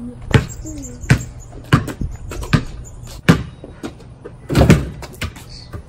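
Basketball bounced on a concrete patio, five bounces about three-quarters of a second apart, then a longer thud about four and a half seconds in.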